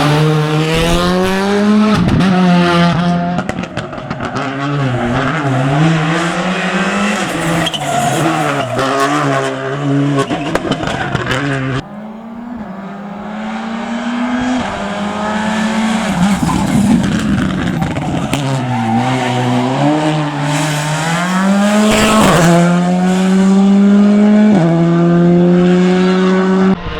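Rally cars driven hard on a stage: engines revving high and dropping back through quick gear changes, with tyre squeal in the corners. The sound cuts off sharply about twelve seconds in and picks up on another car.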